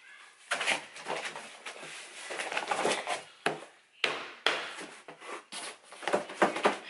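Cardboard scraping and rustling as a long cardboard box is slid out of a larger shipping carton, with a few sharp knocks of cardboard against cardboard.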